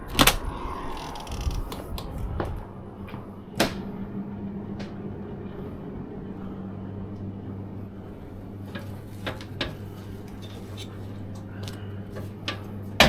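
A door being opened and shut, with sharp knocks near the start and about three and a half seconds in. After that a steady low hum runs under scattered small clicks and taps.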